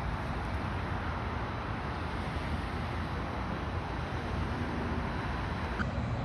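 Steady rushing background noise, even and unbroken, heaviest in the low end.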